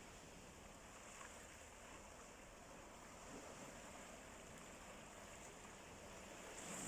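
Faint sea waves washing ashore, swelling a little louder near the end.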